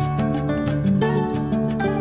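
Background music with a quick, even run of notes.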